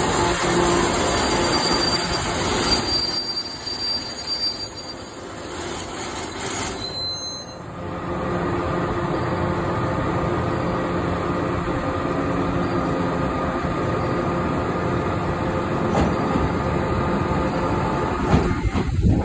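JR West Kakogawa Line local electric train approaching the platform. Its running noise dips for a few seconds, then runs steady with a faint hum from about eight seconds in.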